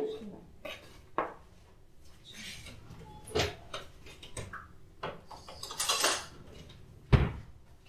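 Kitchen handling sounds from a blender jar and a whisk against a plastic mixing bowl as batter is poured in. There are a few scattered knocks, the loudest a dull thud near the end, with soft scraping sounds between.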